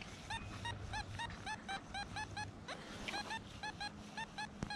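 Geese honking repeatedly in the distance, short arched honks about four a second. A single sharp click near the end.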